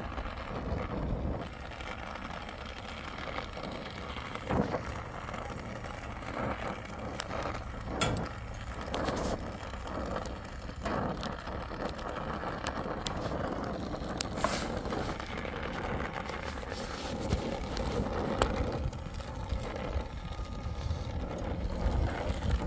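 Oxy-fuel brazing torch flame hissing steadily on a copper refrigerant line joint as it is heated for brazing, with a few sharp clicks.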